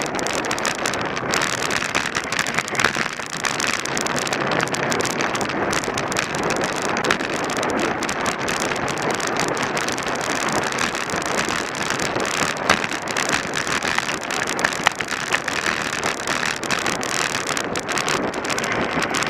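Steady wind noise rushing over the microphone of a camera riding along on a road bicycle, with a few brief louder gusts or bumps.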